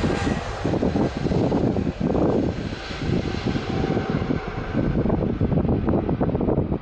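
Jet airliner's engines rumbling as the aircraft moves away, the hiss at the top fading steadily while the low rumble stays loud, with gusts of wind buffeting the microphone.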